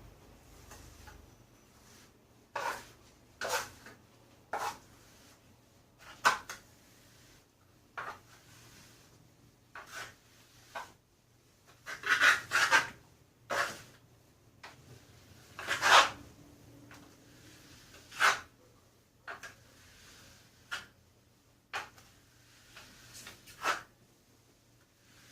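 Plastering trowel spreading thick insulating coating paste over a wall: about eighteen short scraping strokes at an uneven pace, one every second or two, loudest about halfway through.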